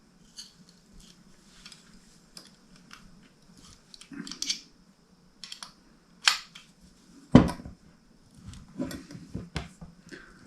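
Small metal tools and pedal parts clicking and clinking as they are handled, with a sharper knock about seven seconds in.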